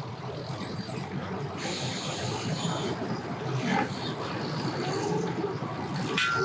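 Boat motor running at a launch ramp over a steady wash of churning water, its pitch climbing slightly near the end.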